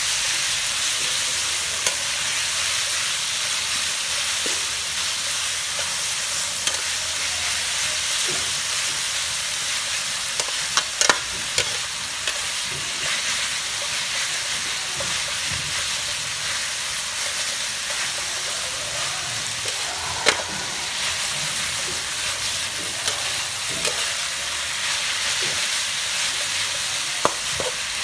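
Chicken and shredded lemongrass sizzling as they are stir-fried in a stainless steel wok: a steady frying hiss, with occasional sharp clinks of the metal ladle against the pan, a few together near the middle.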